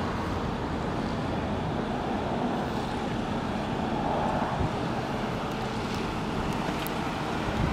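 Steady mechanical drone with a faint constant hum, mixed with wind on the microphone.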